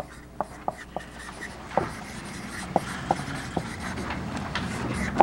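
Marker pen writing on a whiteboard: short scratchy strokes with scattered sharp ticks as the tip touches down and lifts.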